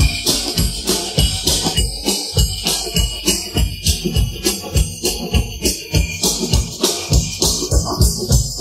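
Drum kit playing a steady rock-and-roll beat of bass-drum thumps with snare and cymbal hits, isolated from a full band recording by stem-separation software.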